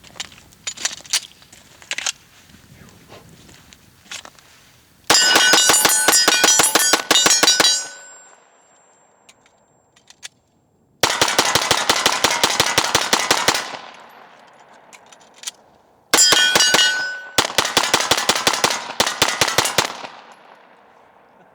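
Glock 23 pistol with a Lone Wolf 40-to-9mm conversion barrel fired in four rapid strings of shots, each several shots a second, with steel targets ringing under the hits. The barrel cycles and fires reliably.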